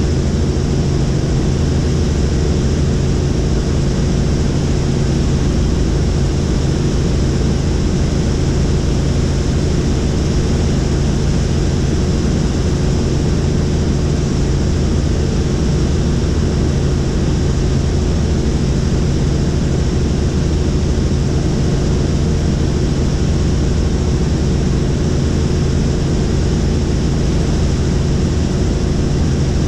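Helicopter in flight: its engine and rotor make a loud, steady drone with a constant low hum, unchanging throughout.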